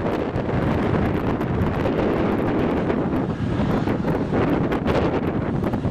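Eurocopter AS 332 Super Puma helicopter running on the ground, its twin turbines and turning main rotor making a steady loud rush, with heavy wind buffeting the microphone.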